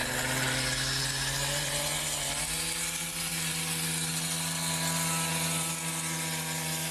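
Small engine running steadily, its pitch stepping up about two seconds in and holding there.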